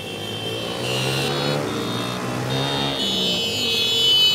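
Several Honda 50 step-through motorcycles, small four-stroke single-cylinder engines, revving as they pull away and ride past, the sound building to its loudest near the end.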